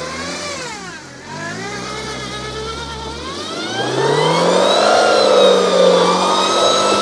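Opel estate's diesel engine revving hard as its front wheels spin on the muddy hill climb. The revs sag in the first second, climb steadily over the next few seconds, then hold high and loud.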